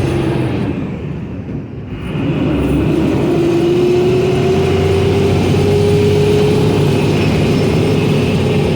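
Engine and drivetrain of a WWII-era amphibious Duck tour vehicle running under way. It dips briefly about a second in, then comes back with a steady whine that rises slowly in pitch as it picks up speed.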